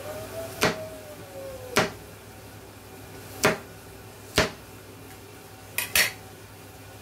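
A cleaver slicing through a carrot on a plastic cutting board: six sharp knocks of the blade on the board, about a second apart, the last two close together near the end.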